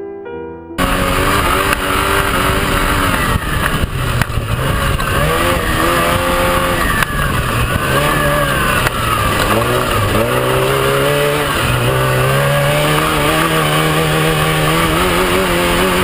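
Off-road desert race truck's engine running hard at high revs, its pitch rising and dipping again and again with throttle and gear changes, over a steady rush of noise. It cuts in suddenly about a second in, right after a short piano passage stops.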